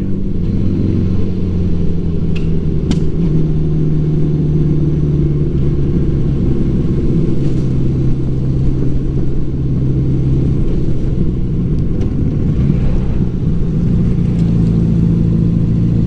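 A 1984 Honda Gold Wing Aspencade's flat-four engine runs at a steady road speed, heard from on the bike with wind and road noise. The engine note dips a little in the middle and rises again near the end.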